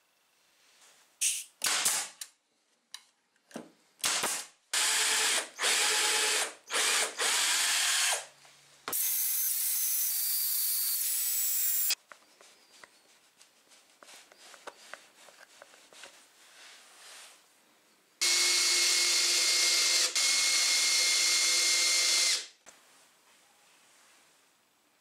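Electric drill running in a string of short trigger bursts during the first eight seconds, then in longer steady runs of about three and four seconds.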